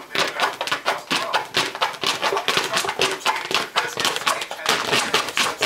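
Long-haired dachshund puppy attacking a cardboard box with its head inside it: fast, irregular scratching, rustling and knocking of cardboard as it scrabbles and tugs.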